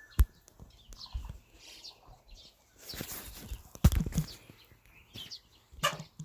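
Small birds chirping in short, high, downward-sliding calls, with two sharp knocks, one just after the start and a louder one a little before four seconds in.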